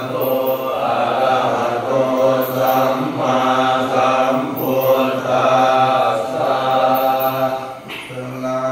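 Thai Buddhist chanting (suat mon): voices recite on a near-monotone, low held pitch with slight rises and falls, with a brief pause for breath about eight seconds in.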